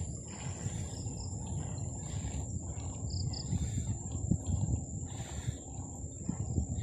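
Wind rumbling on the microphone of a moving bicycle rider, under a steady high-pitched insect drone. Two short high chirps come a little after the three-second mark.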